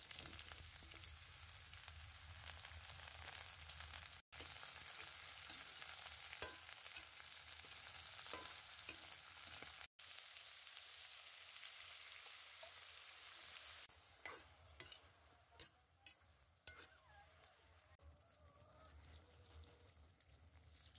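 Food sizzling steadily as it fries in a pan, with scattered light clicks. The sizzle stops about two-thirds of the way through, leaving only a few clicks and knocks.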